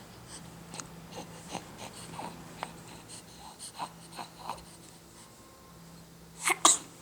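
A six-week-old baby's small breathy snuffles, wheezes and mouth clicks, then two sharp nasal bursts close together near the end, like a snort or a sneeze.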